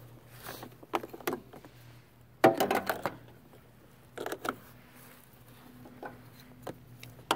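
Jump-starter pack cables and spring clamps being handled and clipped onto a riding mower's battery terminals. Scattered clicks, knocks and rubbing, the loudest a cluster of rattles about two and a half seconds in.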